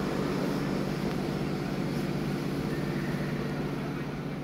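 Steady hum and rumble of a departing freight train hauled by a CFR Class 40 (LE5100) electric locomotive, beginning to fade near the end.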